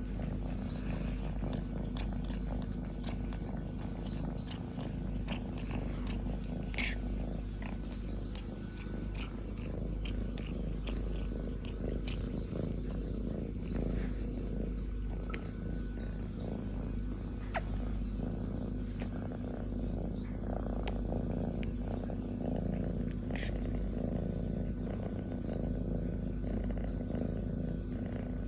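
A young cat purring steadily and continuously, with scattered faint clicks and wet smacks as she licks her owner's face.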